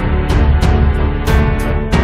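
Background music with held chords and a steady beat of sharp drum hits, about three a second.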